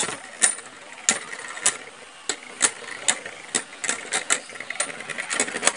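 Two Beyblade Burst tops spinning in a plastic basin, one with a glass marble fitted as its tip: a steady hiss of the tips running on the plastic, broken by sharp clacks, about two a second, as the tops knock together.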